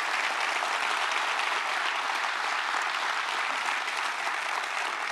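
Large auditorium audience applauding steadily, a dense sustained clapping from many hands.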